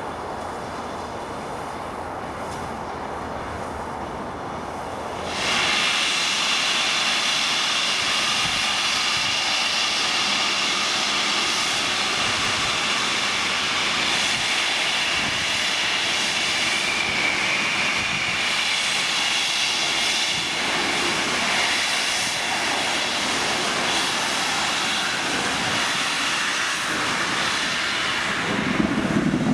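Steam chime whistle of the Peppercorn A1 Pacific locomotive Tornado. It cuts in suddenly about five seconds in as one long, continuous, many-toned blast and is held unbroken for more than twenty seconds.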